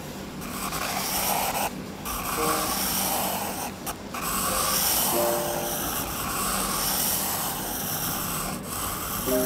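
Graphite pencil scratching over textured drawing paper while sketching a light circle. The scratching comes in swelling strokes, about one a second.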